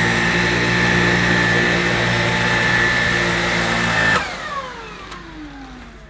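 Bosch Unlimited BCS111GB cordless stick vacuum running on turbo mode with a steady high whine as it cleans pet hair from carpet. It is switched off about four seconds in, and the motor spins down in a falling whine.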